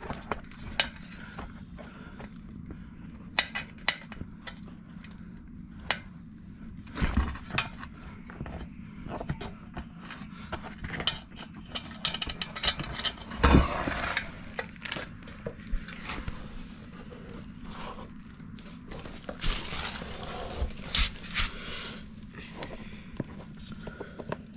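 Metal tire spoons clinking and scraping against a dirt bike wheel rim in scattered bursts as the tire and inner tube are worked onto the rim by hand, over a steady low hum.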